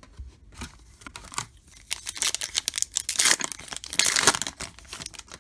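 A foil trading-card pack wrapper being torn open and crinkled, with a few light clicks at first and then a dense crackling that peaks twice before fading near the end.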